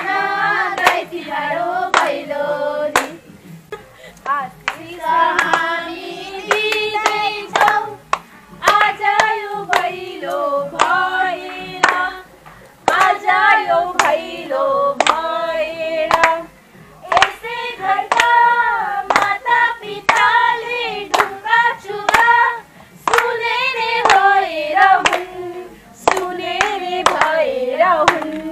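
A group of women singing Bhailo songs for Tihar and clapping along in a steady beat, in sung phrases broken by short pauses.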